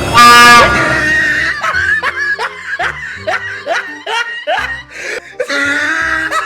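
A sudden, very loud train-horn blast lasting about half a second, then a run of rapid laughter, about three quick bursts a second, over background music.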